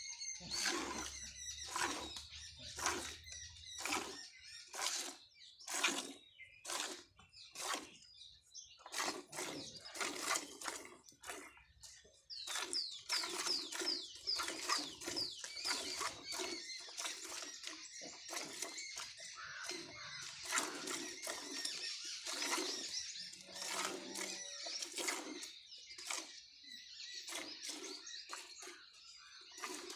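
Hand-milking of a cow: streams of milk squirting into a steel bucket in a steady rhythm, a squirt every second or so with each squeeze of the teats. Birds chirp from about twelve seconds in.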